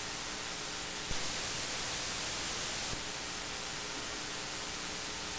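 Mic-preamp noise floor of a Behringer X32 and an Allen & Heath QU16 digital mixing console at +40 gain, heard as a steady hiss with a low buzz of 60-cycle hum under it. About a second in, the hiss turns brighter and slightly louder for about two seconds, then drops back.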